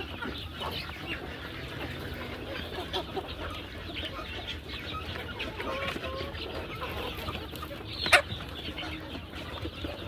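A flock of desi chickens clucking and calling as they feed, with one sharp knock near the end.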